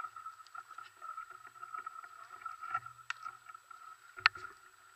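Shallow stony river running, with splashing from feet wading through the water. A sharp knock about three seconds in is followed by a louder knock just after four seconds, the loudest sound.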